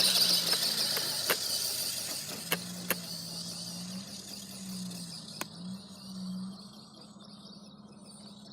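Radio-controlled toy car's small electric motor whining as the car drives off, loud at first and fading away over about seven seconds, with a few sharp clicks along the way.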